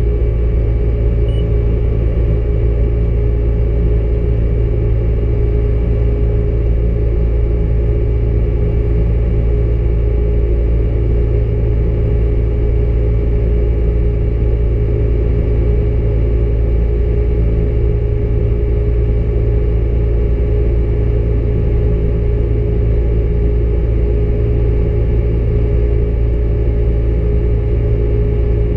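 Combine harvester running at a constant speed, a loud steady drone with a low rumble and a steady hum.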